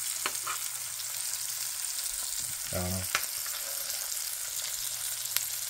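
Steak searing in hot butter in a pan, a steady sizzle, with a few light clicks as a metal spoon touches the pan while basting.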